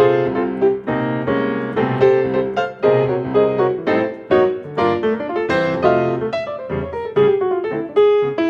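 Piano music, a run of notes struck at an even pace, about two to three a second.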